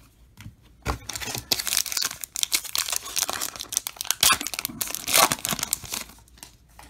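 Baseball card pack wrapper torn open and crinkled by hand, starting about a second in as a dense crackle with sharp peaks, then dying down near the end as the cards come out.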